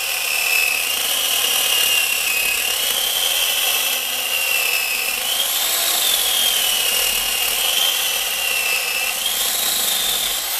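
A 960-watt corded electric chainsaw running and cutting through a tree branch, its motor whine rising and falling in pitch as it works.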